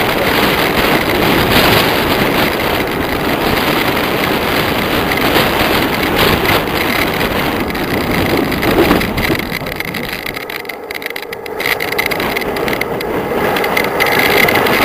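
Loud wind noise rushing over the microphone of a camera moving fast down a mountain road, easing off briefly about ten seconds in before building again.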